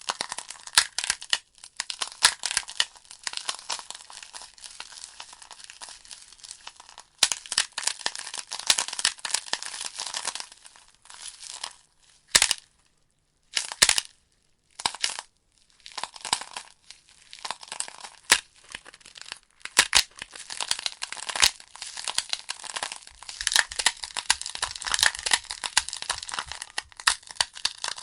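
Wood logs burning in a fireplace, crackling with many sharp irregular pops and snaps. The crackle drops out twice, for about a second each time, near the middle.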